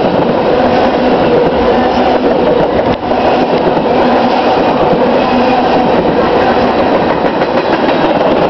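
Freight train tank cars rolling past at close range: a loud, steady rumble of steel wheels on rail with faint ringing tones running through it, and a brief dip about three seconds in.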